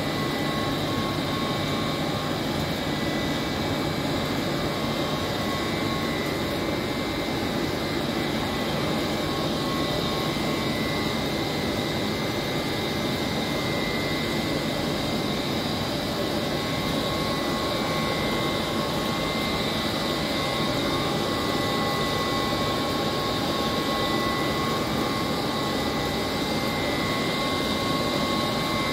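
Operating Trane screw-type chiller and its circulating water pumps running steadily: a constant machinery drone with a steady high-pitched whine on top.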